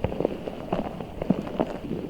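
Giant orbeez-filled squishy ball squeezed and handled by fingers, making a quick, irregular run of short squishing clicks and taps, several a second.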